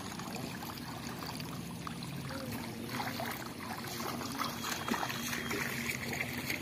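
Water trickling and sloshing around the legs of a person wading through shallow muddy water, with a faint steady low hum underneath.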